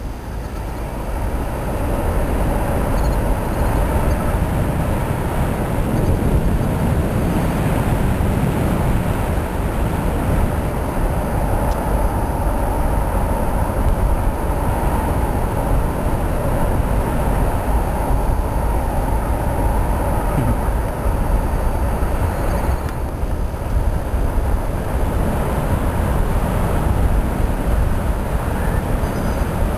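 Wind rushing over the camera microphone in flight on a tandem paraglider: a loud, steady buffeting rumble that builds over the first couple of seconds, then holds.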